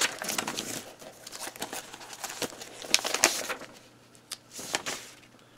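Sheets of paper rustling and crinkling as they are handled and leafed through, quick rustles that thin out after about three and a half seconds, with a few more near the end.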